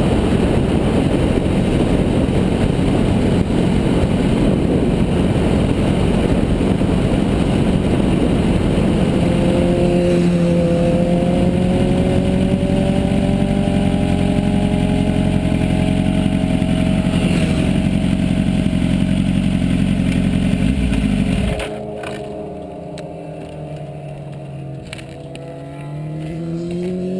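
Kawasaki Ninja motorcycle riding, with heavy wind rush over the bike-mounted microphone and the engine note slowly falling as it slows. The wind noise cuts off about 21 seconds in as the bike stops, leaving a quieter engine, and a rising engine tone comes in near the end.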